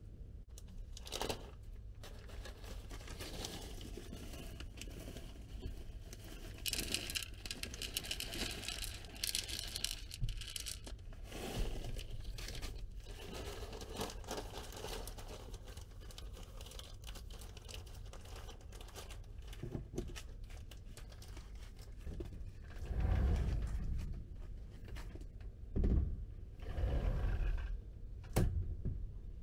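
Plastic bag of dry cat food crinkling and rustling as kibble is poured out onto a feeding tray, loudest about a third of the way in. Several dull low thumps follow near the end.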